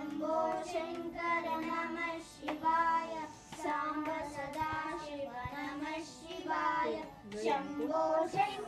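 Several children singing a devotional song together, in long held phrases with short breaks for breath. Their hands tap or clap lightly to keep time.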